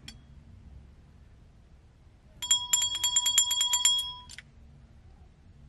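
Small novelty bell rung rapidly by hand: a quick run of about fifteen strikes, about nine a second, ringing brightly for about a second and a half, starting a little before halfway through and ending with a small click.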